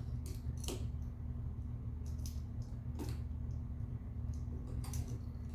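A few faint, short clicks of needle-nose pliers and copper ground wire as the wire is bent into a hook and hooked onto an outlet's ground screw, over a steady low hum.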